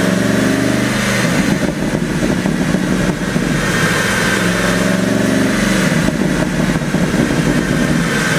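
Porsche Panamera GTS twin-turbo V8 revved and held twice, each time dropping back with a run of crackling and popping from the exhaust on the overrun, the effect of a pop-and-crackle tune.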